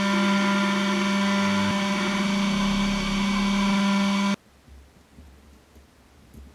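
The 500 W spindle motor of a desktop CNC 3018 runs at a steady high whine while milling aluminium, then cuts off abruptly a little over four seconds in. A few faint knocks follow as the plate is handled.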